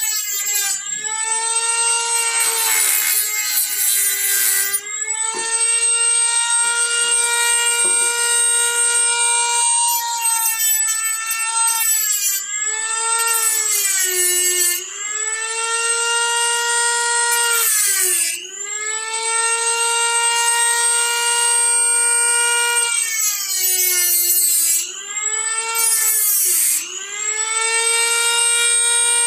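Dremel rotary tool with a cutoff wheel running at high speed with a steady whine, its pitch sagging several times as the wheel bites into the steering-wheel rim and recovering as it lifts off, with a gritty cutting rasp during the heavier cuts. The cracks in the vintage steering wheel are being cut wider so they can be filled with epoxy.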